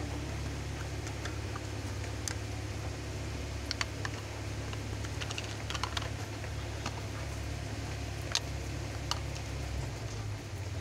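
Plastic fidget spinners with steel ball weights spinning on a glass counter: irregular light clicks and ticks, over a steady low hum.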